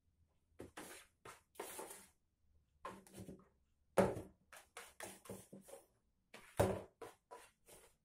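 A small cardboard box scraping and rustling in short bursts on the floor as a cat paws and pushes it, with two louder knocks, about four seconds in and again about two and a half seconds later.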